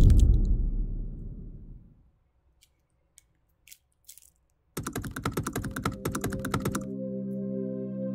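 A deep cinematic boom that fades away over about two seconds, then near silence. About five seconds in, rapid keyboard-typing clicks run for about two seconds, and a sustained ambient music chord sets in beneath them as they stop.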